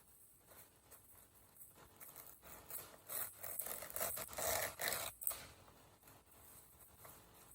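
Paper towel being scrunched and rustled, a burst of crinkling from about two and a half seconds in to about five seconds in, with lighter handling sounds before and after.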